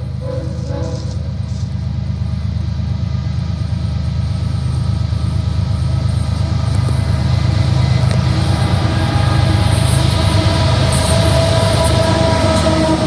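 CSX diesel locomotive leading a freight train on approach, its engine rumble growing steadily louder as it draws near and reaches the listener. The end of a horn blast trails off in the first second.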